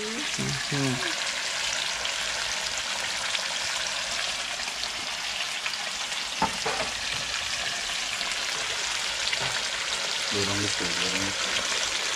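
Flour-dusted tilapia pieces frying in a pan of hot oil, a steady crackling sizzle. One brief tap about halfway through.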